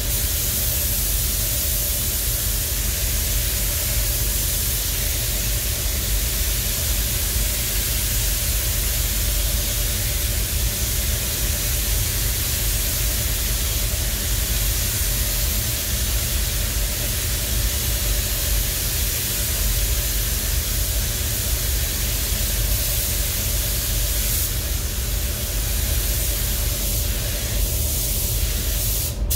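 Air spray gun hissing steadily as paint is sprayed onto a masked bus body, over a steady low hum.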